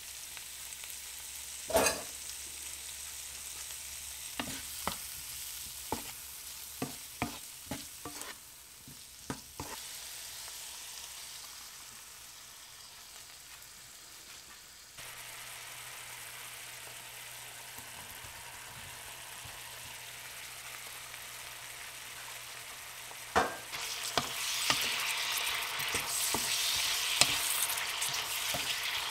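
Food sizzling in hot oil in a frying pan as broccoli and then chicken are stir-fried, with a utensil knocking against the pan several times in the first few seconds. Near the end the sizzling grows louder while a wooden spatula stirs.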